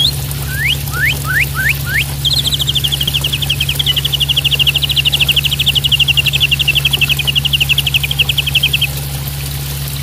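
Juvenile white-rumped shama singing. In the first two seconds it gives five quick rising whistles, then a long rapid trill that runs for over six seconds, all over the steady rush of falling water.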